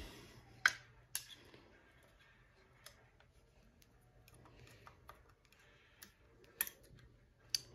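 Scattered small metal clicks and taps of a long screwdriver working a screw inside the steel receiver of a Smith & Wesson 916A pump shotgun. The loudest click comes about half a second in, and two more sharp ones come near the end.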